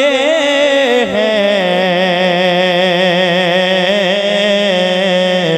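A man singing a naat in Urdu, holding one long wavering note with vibrato from about a second in until near the end, amplified through a microphone.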